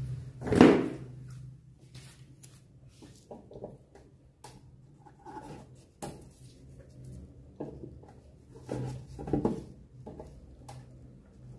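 A metal hand tool scraping and tapping at the filled corner of a plastic radio cabinet, in short irregular strokes. There is a loud knock about half a second in and a louder scraping stretch around nine seconds, over a steady low hum.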